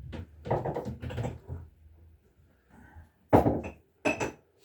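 Household clatter: a run of small knocks and clinks, then two sharp, loud knocks about three and four seconds in.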